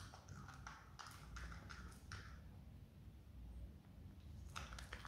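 Himalayan marmot biting and chewing a raw red cabbage: a run of faint, crisp crunching clicks. It pauses for about two seconds midway, then the crunching starts again near the end.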